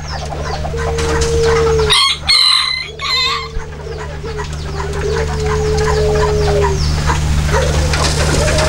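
Chickens clucking, with a rooster crowing about two seconds in and hens giving long, drawn-out level notes.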